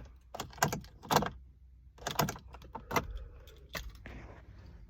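Keys on a key ring jangling and clicking in several short bursts as the key is worked in the ignition of a truck that will not start. No engine cranks or runs.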